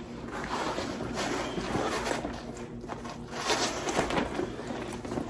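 A travel bag being handled and turned over: uneven rustling and scraping with small knocks and clicks, louder in two stretches around the middle.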